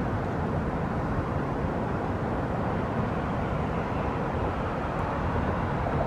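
River water rushing steadily around rocks, a constant even rush with a heavy low rumble and no separate sounds standing out.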